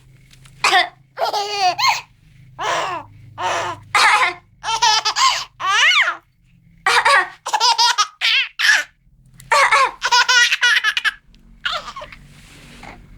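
A two-month-old baby laughing hard, set off by someone coughing. The laughter comes as a long string of short, high-pitched bursts, about one a second or faster.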